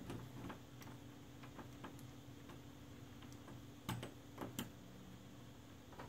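Small, irregular metallic clicks of a hook pick working the pins inside a doorknob's pin-tumbler lock, with a few louder clicks about four seconds in.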